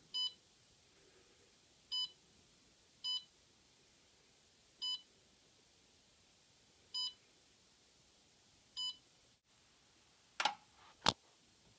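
Evenheat Rampmaster heat-treat oven controller beeping as its keypad buttons are pressed: six short, identical beeps one to two seconds apart, which set the oven running. Near the end come two sharp clicks, the second the loudest sound here.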